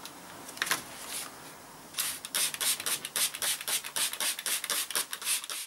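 Hand trigger spray bottle squirting pink bike cleaner onto a motorcycle's engine and frame. It gives a couple of squirts about half a second in, then a quick run of short squirts, several a second, from about two seconds in.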